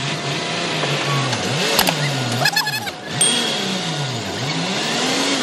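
Heavy diesel machinery engine running, its pitch sagging and recovering twice, as an engine does under changing load. A sharp knock comes just under two seconds in, followed by a brief rattle of clicks.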